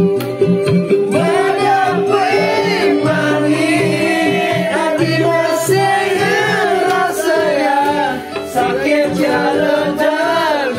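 A song with a singer's voice over instruments and a steady beat; the voice comes in about a second in.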